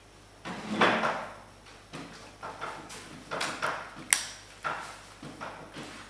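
Plastic shell of a VR–VZ Holden Commodore remote key fob being handled and squeezed together by hand. There is a rustling scrape about half a second in, then a run of small clicks and scrapes, the sharpest about four seconds in.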